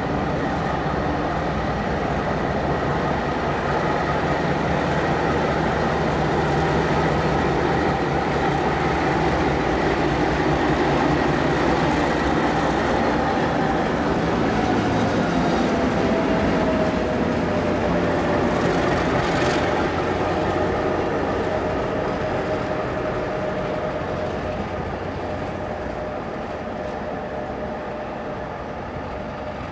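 Diesel-hauled train passing slowly at close range, led by an MLW MX627 locomotive. The engine is loudest about halfway through, with a whine that drops in pitch, then it fades as the train moves off.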